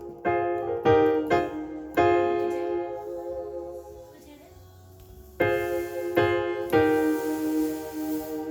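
Yamaha PSR-SX900 arranger keyboard playing piano chords: several struck in quick succession, left to die away almost to nothing, then more chords. Near the end a faint high hiss comes up under the notes. This is the keyboard's fault, a hiss that appears after 20 minutes or more of running and that a factory reset does not cure.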